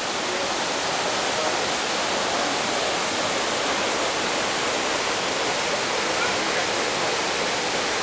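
Water of Edessa's Double Waterfall tumbling over stepped rock ledges: a steady, even rushing.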